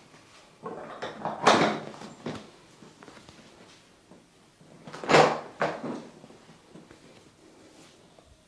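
Two loud sharp hits on the body from a head-and-neck massage, about three and a half seconds apart, each with a few softer hits around it.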